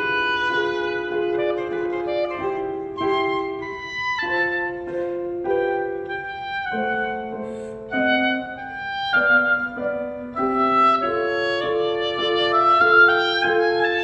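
Oboe playing a melody of held notes, accompanied by a grand piano.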